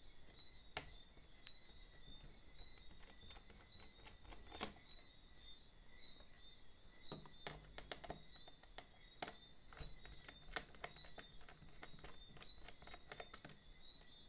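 Faint, irregular small clicks and taps of hands and a screwdriver working the metal hard-drive caddy out of a laptop's drive bay, over a faint steady high-pitched whine.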